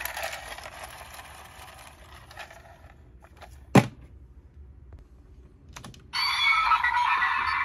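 Handling clicks of a plastic toy belt buckle, one sharp snap about four seconds in, then from about six seconds in the DX Fantasy Raise Buckle's small built-in speaker plays its electronic sound effect.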